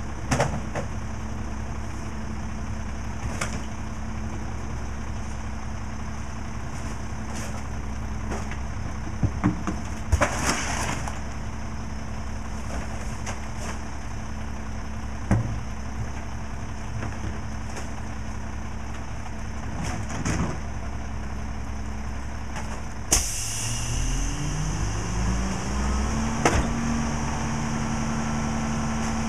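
Rear-loader garbage truck's diesel engine idling, with scattered knocks as trash is dropped into the hopper. Near the end a hiss breaks in and the engine revs up and holds higher as the packer's hydraulics engage to start the compaction cycle.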